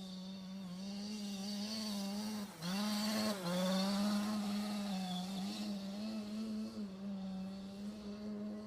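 Losi Mini WRC radio-controlled car's electric motor whining, its pitch rising and falling with the throttle, with a louder burst of acceleration about three seconds in.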